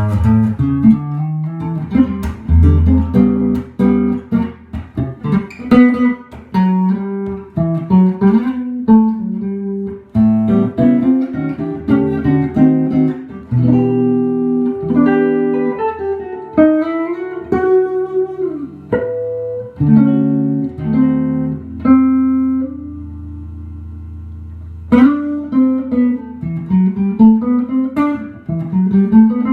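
1966 Gibson ES-125 hollow-body electric guitar played clean through a Fender '68 Custom Princeton Reverb amp: single-note lines and chords, with one chord left to ring and fade for a couple of seconds about three-quarters of the way through before the playing starts again.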